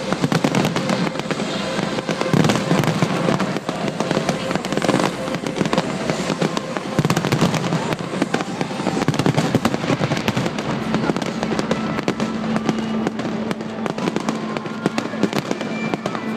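A large fireworks display, with shells bursting in a rapid, unbroken string of bangs and crackling.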